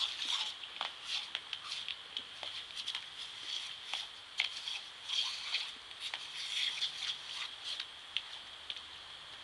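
Pop-up lawn sprinkler spraying with a steady hiss, with irregular pattering and splashing clicks as a dog paws and snaps at the water jet.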